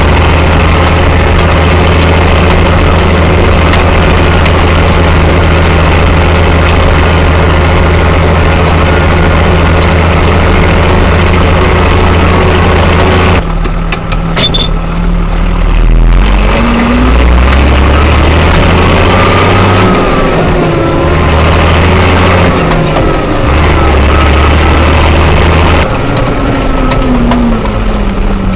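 Fiatagri 100-90 tractor's diesel engine heard from inside the cab while driving on the road: it runs steadily at speed, eases off about halfway through, then picks up again with its pitch rising and falling before settling.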